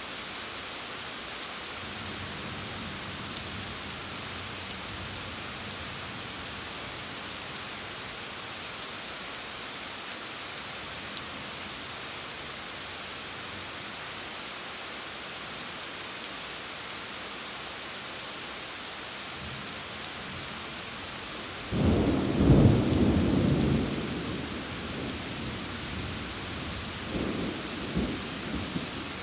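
Steady rain hissing throughout. About two-thirds of the way through, a sudden loud thunderclap rumbles for a couple of seconds and dies away. A second, weaker roll of thunder comes near the end.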